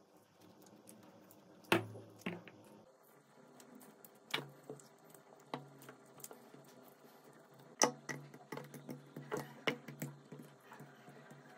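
Metal spoon scooping soft custard apple flesh and knocking against a clear plastic bowl, a run of irregular sharp clicks and taps with quieter handling between; near the end, lumps of pulp drop into a plastic blender jug.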